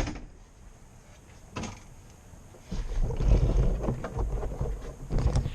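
Low, irregular rumble of wind buffeting the microphone, starting about halfway in after a quieter stretch with a few faint clicks, with occasional handling knocks.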